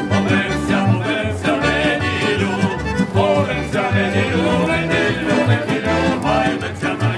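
Street folk band of button accordion, plucked double bass and acoustic guitar playing a lively folk song, with the men singing along over a steady bass beat.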